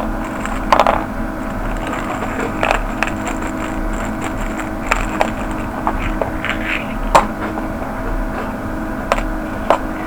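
Sporadic clicks and light scrapes of small hardware being handled as it is picked out of a plastic container, over a steady electrical hum.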